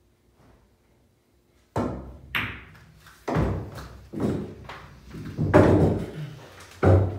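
Pool balls on a coin-operated bar table: two sharp clacks about two seconds in, then a run of heavier thuds with a low rumble as the pocketed ball drops and rolls through the table's enclosed ball-return channel.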